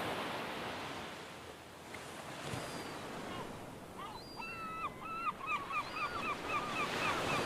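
Beach ambience of steady surf hiss, with a gull calling from about four seconds in: a few long notes, then a quick run of short yelping notes.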